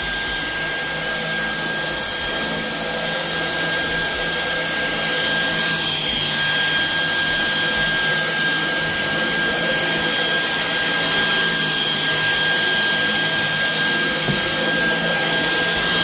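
Dyson V11 Extra cordless stick vacuum running steadily: a rush of air with a high, steady motor whine, growing slightly louder about five seconds in.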